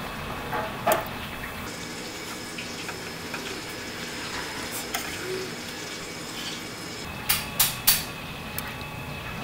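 Tteokbokki sauce simmering in a pan on a portable gas burner, a steady bubbling hiss, with sharp clinks of metal chopsticks against the cookware: one about a second in and three in quick succession near the end.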